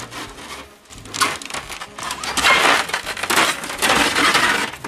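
A polycarbonate greenhouse sheet being rolled up by hand, its plastic giving a dense crackling, rustling noise. The noise starts about a second in and is loudest in the second half.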